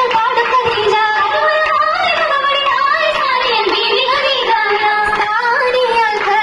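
Female voices singing a Mappila song (Mappilappattu), the song that accompanies an Oppana dance, with a melody that wavers and bends continuously.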